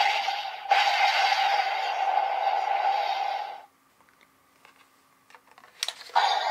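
DX Legendriver toy belt's speaker playing a sustained hissing electronic sound effect that cuts off suddenly about three and a half seconds in. Small plastic clicks of a card being handled follow, then a sharp click and the belt's sound starting up again near the end.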